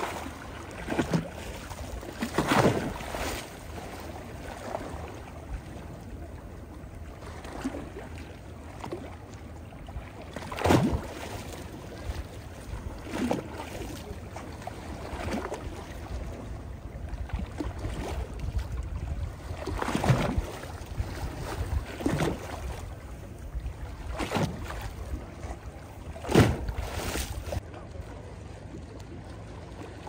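Small sea waves lapping and splashing in shallow water over a pebbly shore, a soft slap every couple of seconds at an uneven pace. A low steady rumble of wind on the microphone runs underneath.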